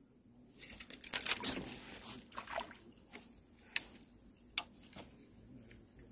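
Crackling, rustling and splash-like noise for about two seconds as a crucian carp is hooked and struggles on the line, then two sharp clicks; the fish comes off the hook.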